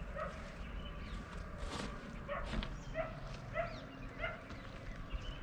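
An animal calling over and over in short, evenly spaced calls, about one every two-thirds of a second, with faint high chirps alongside.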